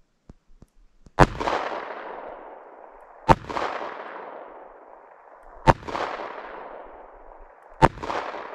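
Four shots from a Smith & Wesson Model 15 .38 Special revolver firing +P 125-grain hollow-point ammunition, spaced about two seconds apart, each followed by a long echo that dies away over a second or two. A few faint clicks come just before the first shot.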